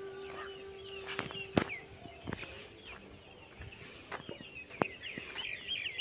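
Small birds chirping in short falling calls, with a held note of background music fading out about a second and a half in and a few sharp clicks.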